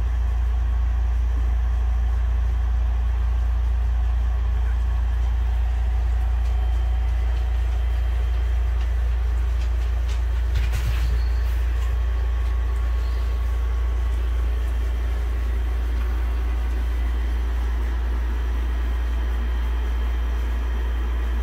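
Steady low hum that keeps an even level throughout, with a brief faint click about eleven seconds in.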